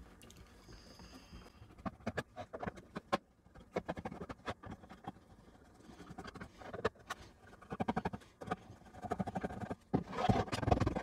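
Screwdriver loosening the screws in the underside of a Sinclair ZX81's plastic case: small irregular clicks and creaks. Near the end come louder knocks and rubbing as the plastic case is handled.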